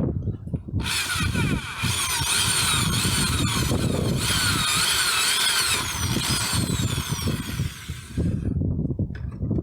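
A small power tool running for about seven and a half seconds, its whine repeatedly sliding up and down in pitch, over a low rumbling background.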